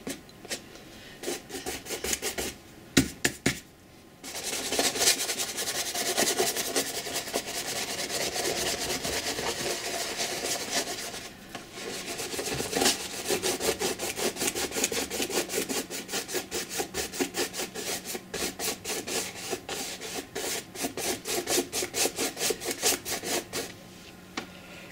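A stiff bristle brush dry-brushing white acrylic paint across a canvas: a continuous scratchy scrubbing for several seconds, then after a brief pause a run of separate strokes at about three a second. A few light knocks come about three seconds in.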